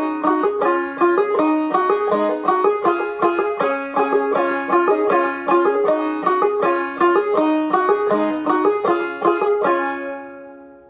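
Gold Tone CC Carlin 12 five-string banjo played clawhammer style, in double C tuning capoed up to C#, an even run of picked notes and brushed strums with no singing. The last strum near the end rings and fades away.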